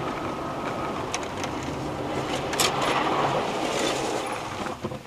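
Car driving on a wet road, recorded from inside by a dashcam: steady road and engine noise with a few faint ticks.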